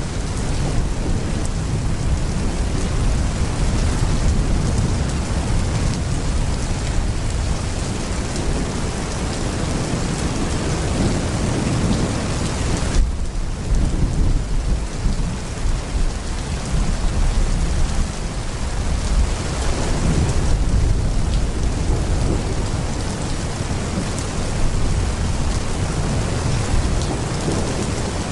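Heavy rain pouring steadily, with low rolling thunder rumbling underneath. The high hiss of the rain dips briefly about halfway through.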